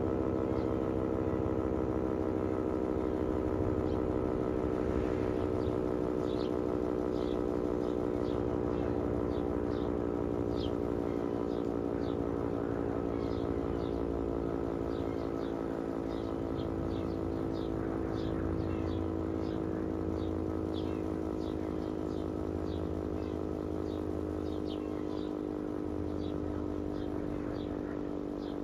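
Klaxon GP8 electro-mechanical siren sounding a steady tone that slowly sinks in pitch and fades a little, as the siren winds down. Short high chirps sound over it from about five seconds in.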